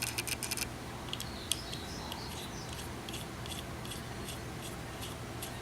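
A quick flurry of small metal clicks as the parts of a home-made clamp knurling tool are handled, then faint, even ticking about two and a half times a second over a low steady hum.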